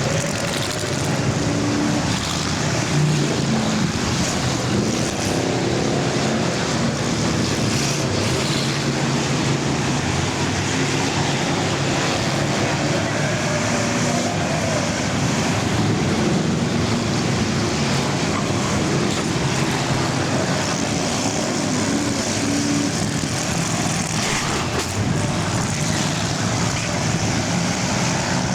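Engines of a field of full-size cars racing around a dirt oval in an enduro, a continuous dense engine noise with several engines overlapping and changing pitch.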